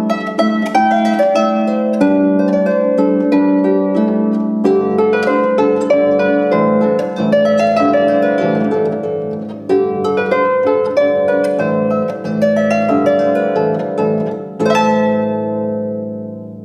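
Harp playing a lively folk-dance tune, a rhythmic plucked melody over a repeated low bass. A final chord is swept near the end and rings away.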